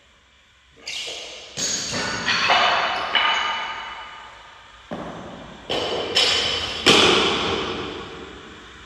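About eight sharp metal clanks of steel weightlifting gear, barbell or plates, being knocked or set down. Each one rings and dies away slowly in an echoing hall, and the loudest comes near the end.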